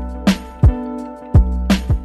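Background music with a steady beat: sustained instrumental tones over regular drum hits with deep kick thumps.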